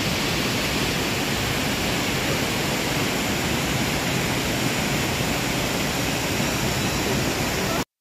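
Steady rushing of a tall waterfall pouring down a rock face, which cuts off abruptly just before the end.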